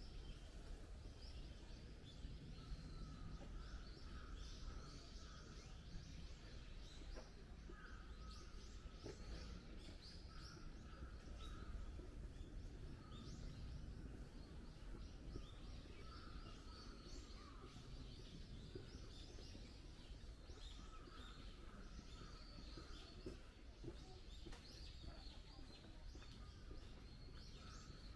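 Faint outdoor ambience: birds chirping and calling over and over throughout, over a low steady rumble.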